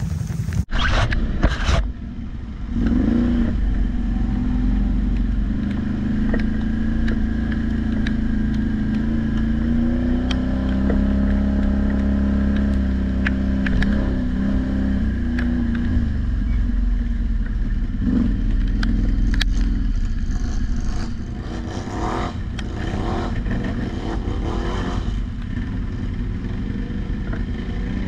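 ATV engine running while riding, its pitch rising and falling with the throttle, over wind and rumble. A few sharp knocks in the first two seconds.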